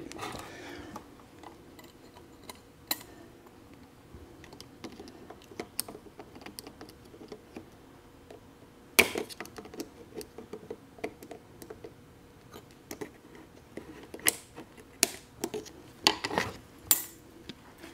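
Snap ring pliers working a tight snap ring onto a steel transmission main shaft: scattered light metallic clicks and clinks, a louder one about halfway through and several close together near the end.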